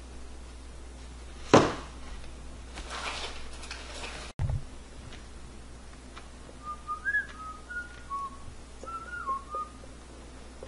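A single sharp knock about one and a half seconds in. Later comes a run of about ten short whistled notes, sliding up and down, lasting about three seconds.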